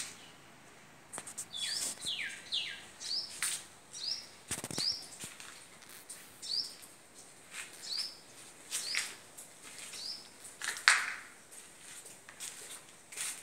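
A small bird chirping over and over in short, high, rising notes, roughly one a second, with a few clicks and a louder bump near the end.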